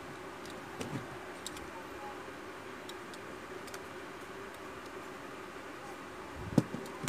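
Handling noise of a smartphone's plastic housing being picked up and turned over in the hands, with a few light clicks and one sharper knock near the end, over a steady low hum.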